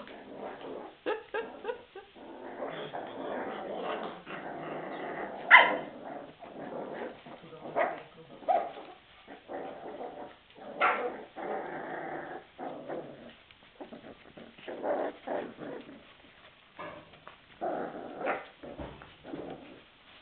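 Several puppies growling at each other as they crowd one small food dish, in stretches of a few seconds, broken by a few short, sharp yips.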